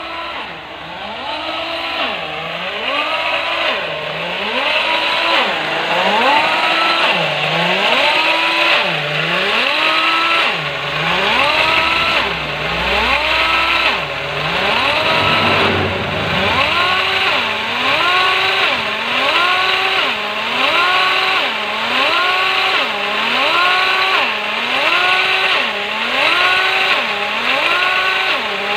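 Air-powered drive of a converted 50-ton bottle jack running, its pitch dipping and rising about once a second in step with the jack's pump lever as it lifts a loaded truck. A steady hiss sits under it, and the rhythm breaks briefly about halfway through.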